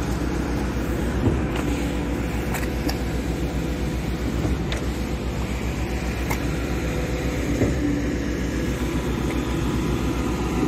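DHBT40 concrete pump running steadily under load as it pushes concrete through the pipeline: an even, low mechanical drone, with a few scattered sharp knocks.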